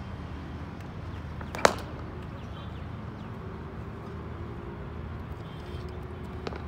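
A single sharp crack of a cricket bat striking the ball, about a second and a half in, over a steady low background rumble. A much fainter click comes near the end.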